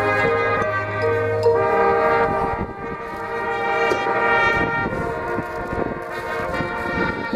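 Marching band playing sustained brass chords over a low held bass note. The bass note drops out about a second and a half in, and from then on percussion hits come in under the brass.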